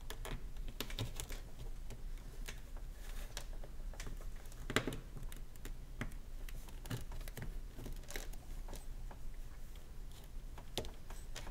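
Small plastic clicks, taps and rubbing as an action figure is handled and its feet are pressed onto the pegs of its plastic display stand, with one louder click a little under five seconds in.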